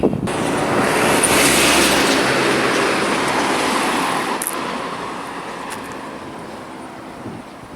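A road vehicle passing close by on a highway. Its tyre and engine noise is loudest about a second or two in and then fades away steadily over several seconds.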